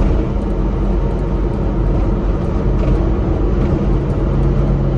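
Engine and road noise inside the cab of a 1993 Subaru Sambar kei truck cruising at highway speed: its 660 cc four-cylinder engine runs steadily under a constant roar of tyres and wind. One low engine tone grows stronger about three and a half seconds in.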